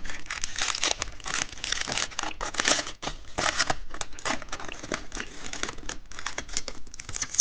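Plastic candy wrapper crinkling and tearing as it is opened by hand: a dense, continuous run of crackles and rustles.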